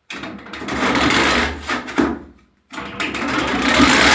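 Two attempts to start a chainsaw, each a rasping burst of about two seconds with a short silence between; the engine does not catch.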